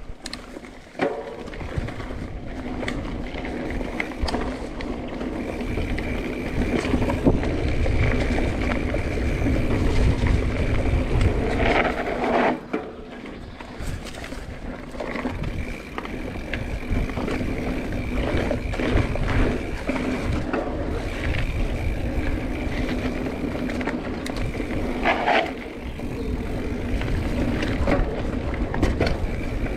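Mountain bike riding a dirt singletrack: wind rumbling on the microphone and tyre noise, with a faint steady buzz that comes and goes and a couple of sharp knocks from the bike hitting bumps.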